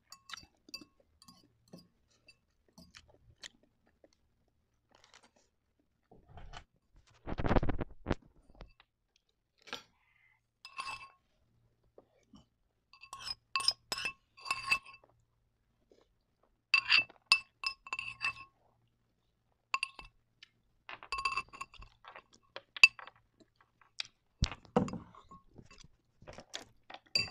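A metal fork clinking and scraping against a clear glass bowl, in clusters of quick clinks with a short ring, as the last of the noodles are scraped out. A brief louder rush of noise comes about seven seconds in.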